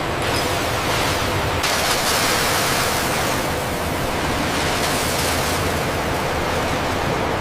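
Steady factory ambience: a broad rushing hiss with a faint hum beneath it, turning brighter about a second and a half in.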